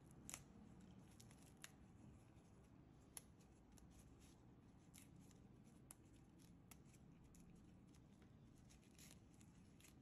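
Near silence broken by faint, scattered small clicks and snaps, about a dozen, as mint sprigs are plucked apart by gloved hands and the leaves drop into a stainless steel pot.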